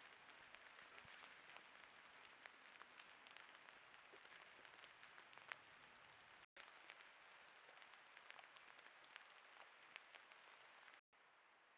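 Near silence: a faint steady hiss with scattered small ticks and crackles. It cuts out briefly twice, where separate recordings are joined, and after the second break only a quieter hiss remains.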